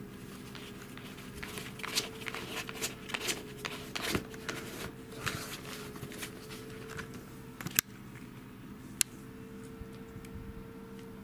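Cardboard rustling and scratching as a kitten moves and paws inside a tissue box: an irregular flurry of scrapes and light taps, then two sharp clicks later on, over a steady low hum.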